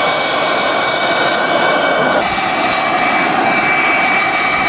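Handheld gas torches burning with a steady rushing hiss, with a thin high whistle over it, as they heat a steel knife blade. The sound shifts slightly about two seconds in.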